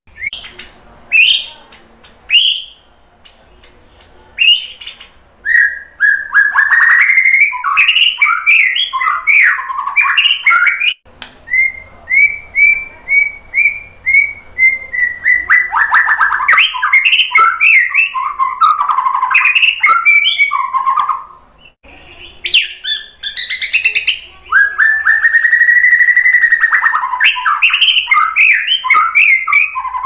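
White-rumped shama singing a long, varied song of clear whistles and quick chattering notes. A few short calls are followed by near-continuous song from about five seconds in, with a brief pause a little after twenty seconds.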